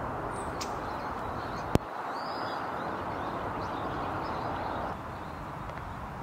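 Steady outdoor background noise with faint bird chirps, and a single sharp click about two seconds in. The noise drops slightly about five seconds in.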